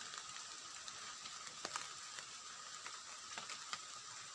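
Quiet forest ambience: a steady hiss with a faint high continuous tone, broken by a few soft clicks.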